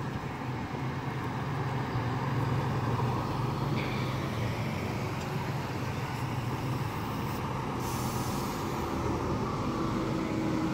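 Buses driving past close by: a steady engine drone with road noise that grows over the first couple of seconds as a bus approaches, and a brief high hiss about seven and a half seconds in.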